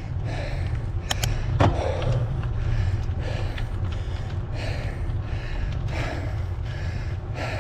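A cyclist breathing hard in rapid, regular gasps while grinding up a 15–20% climb on a mountain bike, over a steady low rumble. There are a few sharp clicks about a second in.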